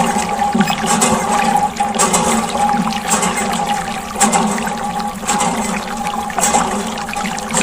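Water gushing and splashing from a miniature DIY water pump, with a steady motor hum underneath and surges about once a second.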